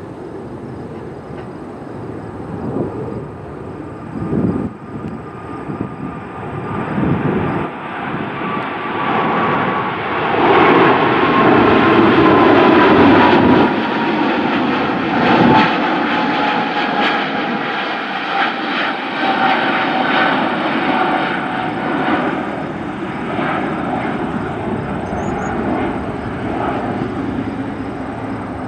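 Jet airliner flying past. The engine noise swells to its loudest about ten to fourteen seconds in, then fades, with a whine that falls slowly in pitch as it goes by.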